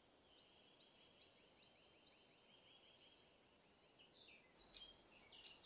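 Faint high calls of great spotted woodpecker nestlings in the nest hole: a quick, even run of short rising-and-falling calls, about four a second, for over three seconds, then a few scattered chirps near the end.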